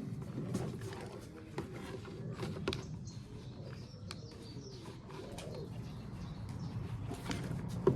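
Faint bird calls over low background noise, with a few scattered light clicks and taps.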